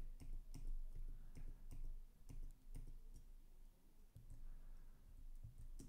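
Light, irregular clicks of a computer keyboard and mouse, a few at a time with gaps between.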